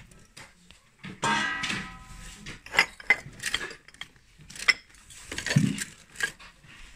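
Porcelain and glassware clinking and knocking together as they are shifted about in a plastic crate: a string of short, sharp clinks with a brief ringing note about a second in.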